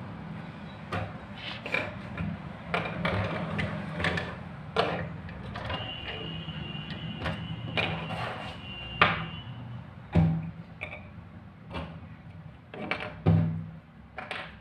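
Small plastic parts (PVC pipe pieces and elbows, a small DC motor, a plastic fan blade) being set down on a laminate table top one by one, giving a string of light clicks and knocks and two heavier thumps in the second half. Under them runs a low steady hum, and a thin high tone sounds for a few seconds in the middle.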